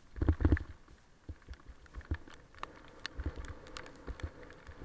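Thumps and clicks of a bicycle-mounted camera jolting along a wet bike path in the rain: a cluster of heavy knocks near the start, then scattered sharp taps and ticks.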